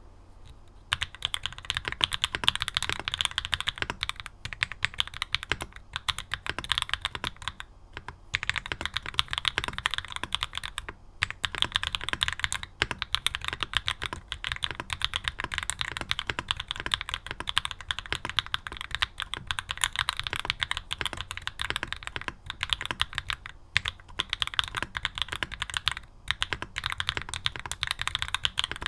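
Fast typing on a Mode Tempo 60% mechanical keyboard built with Mode keycaps, Obscura switches and all its foams (PE, plate and case foam). The keystrokes start about a second in and run on quickly, with a couple of brief pauses.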